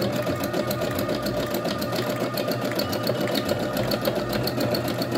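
Domestic electric sewing machine stitching a narrow zigzag over yarn couched onto a thick layered textile panel: a steady, fast, even run of needle strokes.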